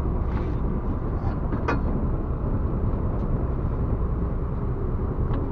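Steady low rumble aboard a small open fishing boat at sea: the boat's running noise and wind over the water.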